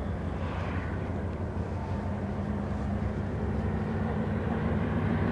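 Diesel locomotives of an approaching freight train (GE ES44DC leading two EMD SD70M-2s) running with a steady low drone that slowly grows louder as they come around the curve.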